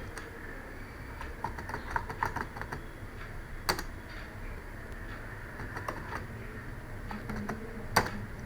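Computer keyboard keystrokes: a quick run of typing, then two louder single clicks a few seconds apart.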